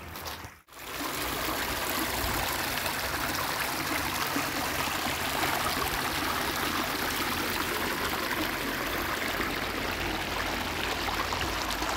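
Shallow river water running steadily over and between sand-filled sacks, a continuous rush. The sound drops out briefly just under a second in, then returns steady.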